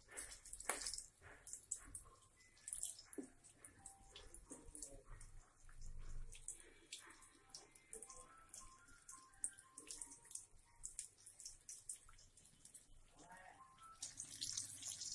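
Besan-battered green chillies frying in hot oil in a kadhai: faint sizzling with a steady scatter of small crackles and pops.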